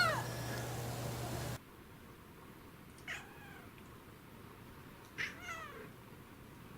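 Domestic cat meowing: a loud meow falls away just after the start, then two short, fainter meows come about two seconds apart.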